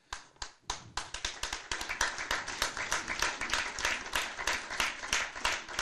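Audience applauding: a few scattered claps at first, quickly filling in to steady applause.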